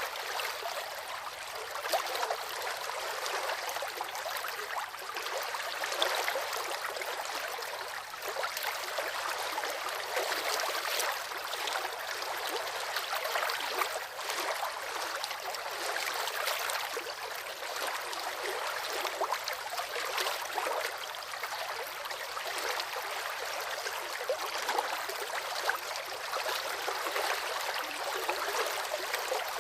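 River water flowing over rocks: a steady babbling rush with small splashes and gurgles throughout.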